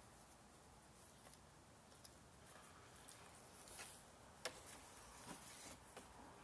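Faint handling sounds of a leather quiver strap and lace being tied and pulled through: soft rustling with a few light clicks, the sharpest about four and a half seconds in.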